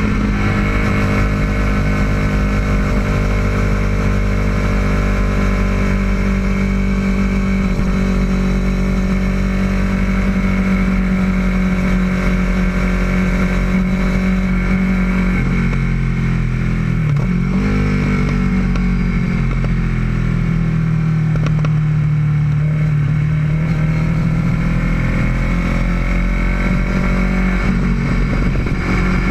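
Kawasaki ER-6n motorcycle's parallel-twin engine running steadily. Its pitch dips briefly past the middle, then sags slightly and recovers later on.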